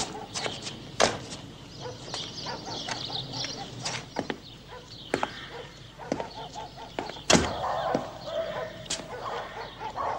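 A Lada Niva's door slams shut about seven seconds in, among scattered knocks and clicks.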